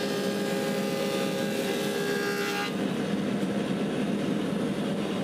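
Woodmaster 725 planer with a helical cutterhead running and planing a sycamore board, a steady motor hum under a whining cut. The cutting whine stops abruptly about halfway through, leaving the machine running without load.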